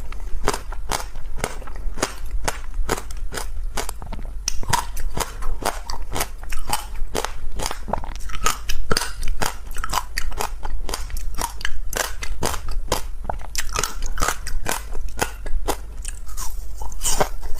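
Crunchy ice being bitten and chewed: a steady run of sharp crunches, several a second, without pause.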